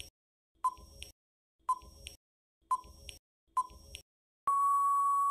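Quiz countdown-timer sound effect: a short pinging electronic tick about once a second, each followed by a fainter click, then a steady long beep near the end that marks time up.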